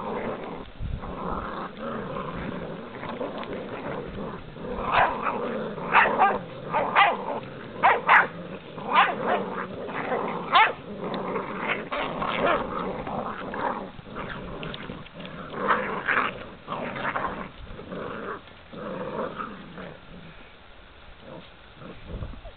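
American Bulldog puppies play-fighting, growling and letting out many short yips and barks, thickest in the middle and tapering off near the end.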